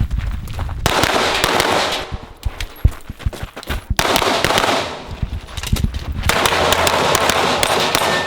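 A pistol fired in quick strings of shots, as on a timed USPSA stage, with stretches of loud rushing noise in between.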